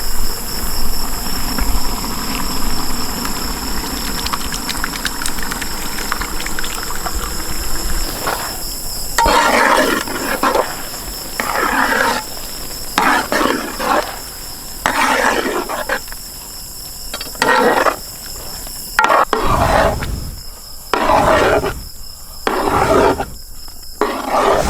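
Crickets chirping steadily with a high, continuous buzz. From about a third of the way in, a run of short, loud sounds comes about once a second over it.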